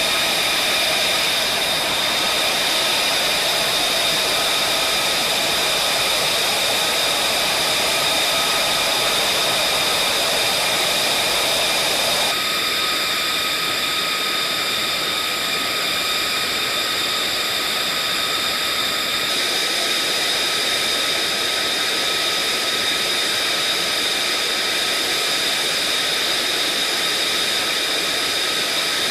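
F-35A Lightning II's Pratt & Whitney F135 turbofan engine running at low power: a steady high whine of several tones over a rushing noise. The mix changes abruptly about twelve seconds in, when the lower rushing drops away, and again some seven seconds later.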